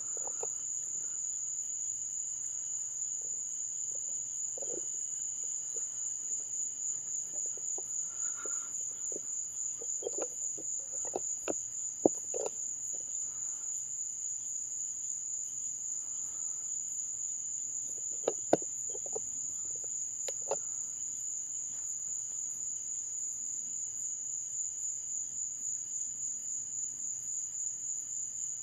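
A dense chorus of night insects trilling steadily at a high pitch. Scattered short low chirps and a few sharp clicks sound over it.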